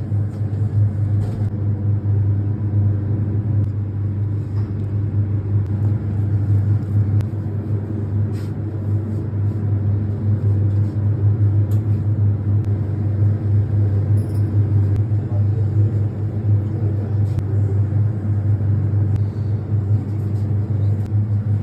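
Steady low mechanical hum that does not change, with fainter droning overtones above it.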